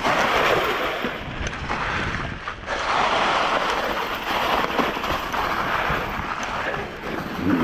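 Mountain bike tyres rolling over a dry, leaf-covered forest trail, a steady rushing rustle mixed with wind noise on the camera microphone. The noise swells and dips with the ride, dropping briefly a little over two seconds in.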